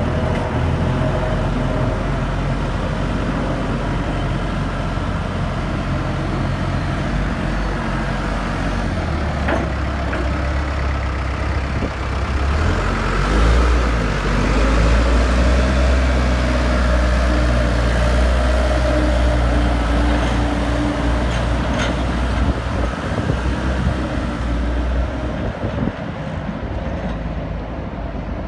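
Diesel engine of a 2007 Lull 944E-42 telehandler running as the machine drives, getting louder as it passes close by about halfway through and fading as it moves away near the end.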